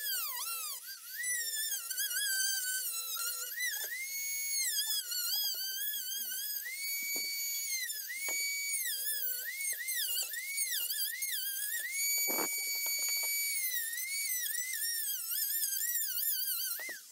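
Dremel rotary tool running at high speed and cutting hard plastic: a high whine that sags in pitch and springs back again and again as the bit bites into the material and frees, with a few brief knocks of the bit against the part.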